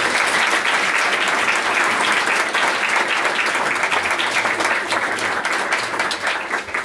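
An audience applauding: steady, dense clapping from many hands, thinning out near the end.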